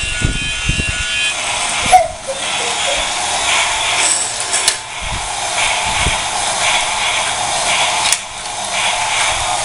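Battery-powered toy train's small electric motor and gears whirring steadily, with three sharp plastic clicks about two, five and eight seconds in.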